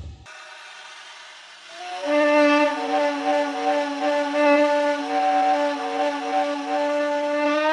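Woolly mammoth call sound effect: a steady, horn-like low note starting about two seconds in, with a second, higher tone coming and going above it, after a faint hiss.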